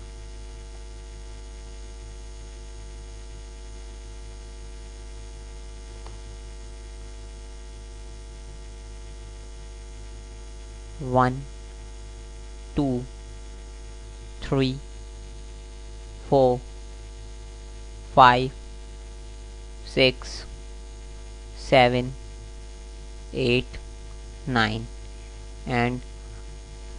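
Steady electrical mains hum on the recording, a low buzz with a ladder of fixed overtones. In the second half a voice speaks single short words at an even pace, about one every second and a half.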